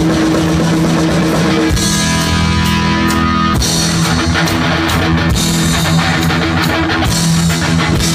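Heavy metal band playing live: distorted electric guitar holding long notes over bass and drums, with a cymbal crash about every two seconds.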